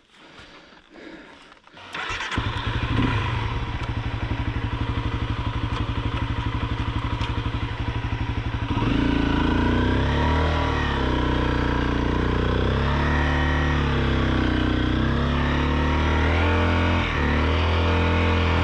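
Honda CRF 250L single-cylinder motorcycle engine starting about two seconds in and idling steadily. About nine seconds in it gets louder, with the revs rising and falling repeatedly as the throttle is worked.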